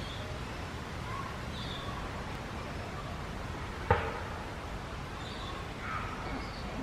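Steady low outdoor rumble with faint high chirps scattered through it, and one sharp knock about four seconds in.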